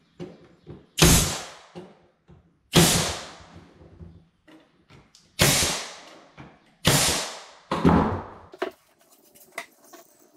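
Pneumatic brad nailer firing five times at uneven intervals, nailing beadboard to a cabinet side. Each shot is a sharp crack followed by a short hiss of exhaust air. The last two shots come close together.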